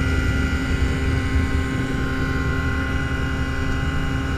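TL-32 Typhoon ultralight's engine and pusher propeller running steadily in cruise flight. The sound is heard from the open cockpit, with a rumbling low wind buffet under the engine's drone.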